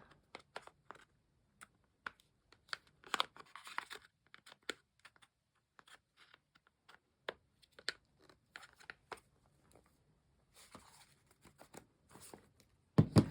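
Plastic blind-bag packaging crinkling and clicking as hands twist and pull at it, trying to force it open. Short scattered crackles, busiest around three to four seconds in.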